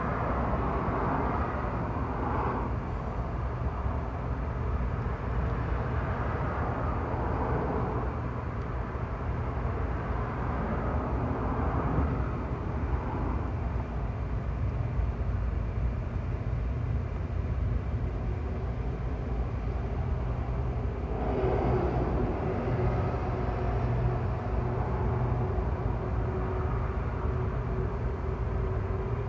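Freight train's diesel locomotives running as the train pulls slowly along the track, a steady low rumble. About two-thirds of the way through, a faint steady tone joins it.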